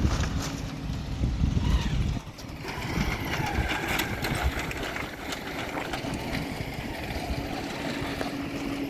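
A low rumble for the first two seconds, then a motorcycle engine running at low speed, with scattered clicks through it.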